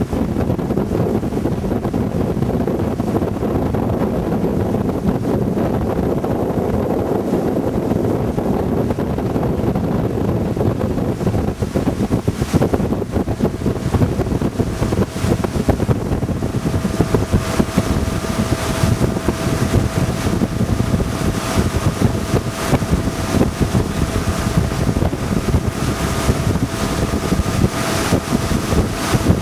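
Wind buffeting the microphone over the steady drone of a motorboat's engine and the rush of its wake, heard from on board the moving boat. About halfway through, the wind gusts turn harsher and a faint steady whine joins in.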